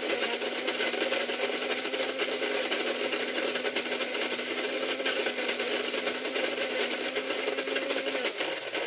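Krups flat burr coffee grinder running on its 2-cup setting, burrs grinding beans as a steady gritty rasp over a constant motor hum. The motor winds down and stops near the end.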